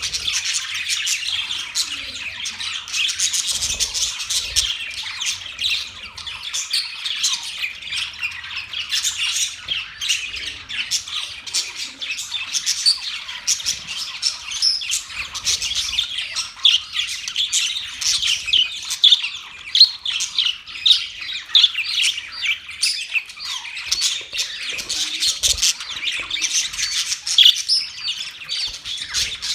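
Budgerigars chattering: a continuous stream of rapid, high chirps and calls without a pause.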